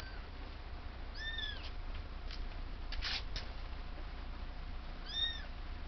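Kitten mewing: two short, high-pitched mews about four seconds apart, with a brief rustling noise between them.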